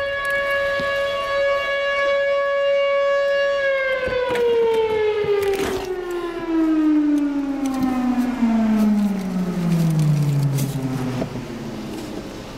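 Tornado warning siren holding a steady wail, then winding down in a long falling pitch over about seven seconds until it stops.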